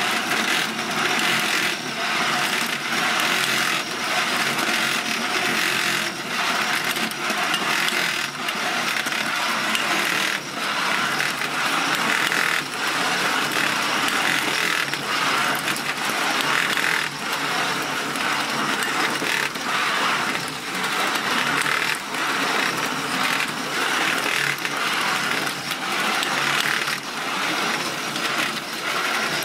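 A 1953 J. Chein Playland Whip No. 340 tin wind-up toy is running. Its clockwork spring motor drives the tin cars around the oval track with a steady metallic rattle, broken by many short, sharp clacks.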